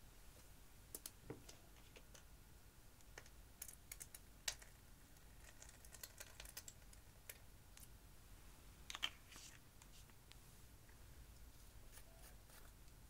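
Quiet, scattered clicks and taps of small plastic makeup containers being handled: a tube of pink glitter gel squeezed out and a small jar of loose purple glitter eyeshadow opened. The sharpest clicks come about four and a half and nine seconds in.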